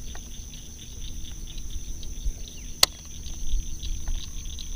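Insects buzzing steadily in a high, even tone over a low outdoor rumble, with one sharp click a little under three seconds in.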